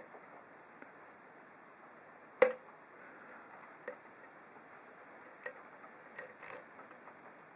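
Sparse metallic clicks of a lock pick working the pins of an ASSA 7-pin oval cylinder under tension: a handful of separate clicks, the sharpest about two and a half seconds in.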